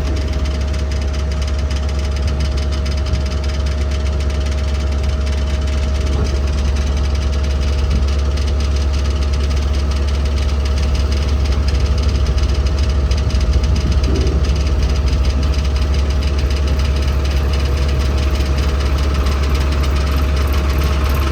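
JCB backhoe loader's diesel engine running steadily, a deep even sound with a constant higher tone over it.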